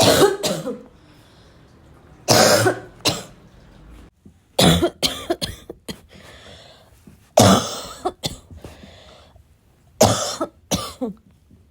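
A person coughing in five bouts, roughly every two and a half seconds. Each bout is one loud cough followed by one to three smaller ones.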